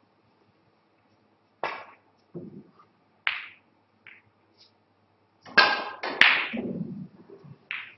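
A snooker shot: the cue striking the cue ball, then a sharp click as the cue ball hits a red, about six seconds in. Several other short knocks and noises come before it, about once a second.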